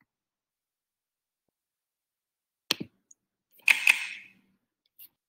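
Silence broken by a few sharp clicks from someone working a computer. A pair comes about two and a half seconds in, then two louder clicks with a short rustle about a second later, and a faint click near the end.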